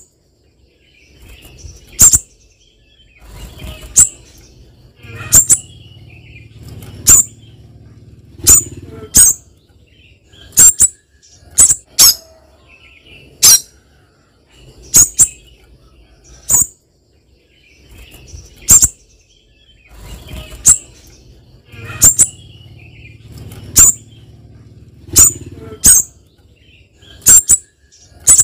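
Caged spiderhunter calling: loud, sharp single chips repeated every second or two, some coming in quick pairs.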